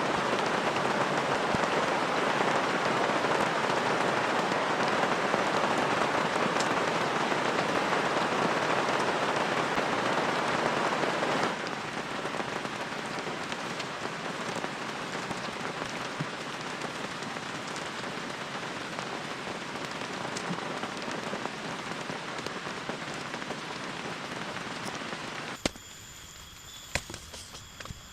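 Heavy rain falling steadily, a dense hiss that drops to a quieter level abruptly about a third of the way in. Near the end the rain falls away and a few sharp knocks are heard.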